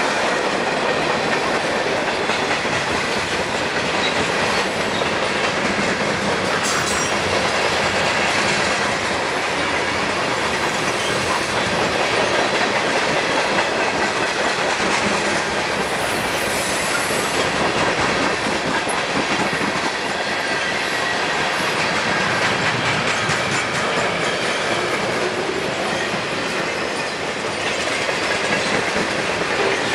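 Freight train cars rolling past close by: a steady, loud rumble and rattle of steel wheels on rail.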